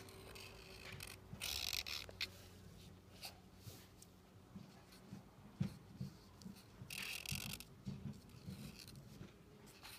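Felt-tip marker drawing on paper: short scratchy strokes, two longer ones about a second and a half in and again around seven seconds, with soft knocks of the hand and pen between them.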